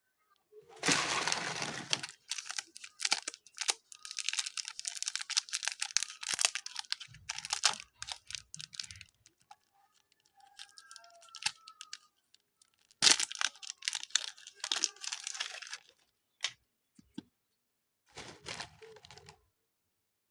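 Hands kneading, stretching and pulling apart slime mixed with super light foam clay, making bursts of dense fine crackling and tearing sounds. Short pauses come around the middle and again near the end.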